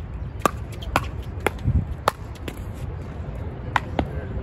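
Paddles striking a plastic pickleball in a rally, a run of sharp pocks about every half second, then a short pause and two more near the end. Wind rumbles on the microphone throughout.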